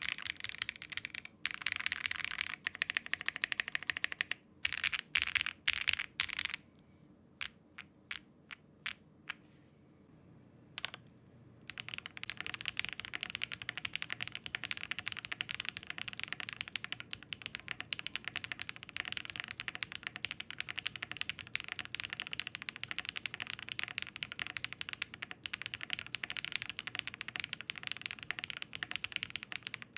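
Zoom65 V3 mechanical keyboard being typed on as a sound test: quick bursts of keystrokes, then a few separate key clicks, then steady continuous typing from about twelve seconds in. The keyboard is built first in its silica gel particle mount and then in its top mount.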